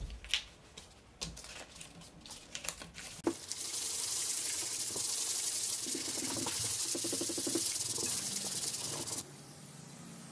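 Aerosol spray can spraying: a steady high hiss lasting about five and a half seconds, dropping to a fainter hiss near the end. Before it come a few sharp clicks and knocks of handling.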